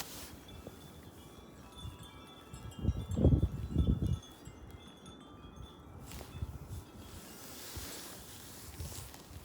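Wind chimes ringing in gusty wind, several tones overlapping. About three seconds in, a gust hits the microphone for about a second with a loud low rumble.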